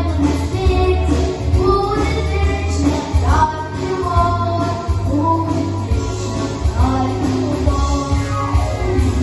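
A girl's solo voice sings a pop-style song over a backing track with a steady bass beat.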